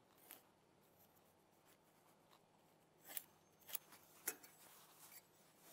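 Near silence, broken by a few faint, brief scratches and ticks in the second half: a pencil drawing along a steel rule across the end of a wooden block, and the square being handled.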